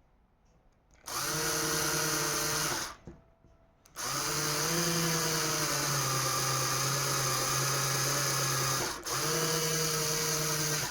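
Old electric drill running in three bursts, the longest about five seconds, deepening a drilled hole. The steady whine dips briefly between bursts as the trigger is released.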